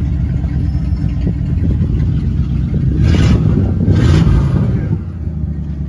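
Exhaust of a 1982 Dodge W150's 318 V8 running, heard from behind the truck: a steady low rumble that swells louder about three seconds in, as if revved, then drops back to idle about a second later.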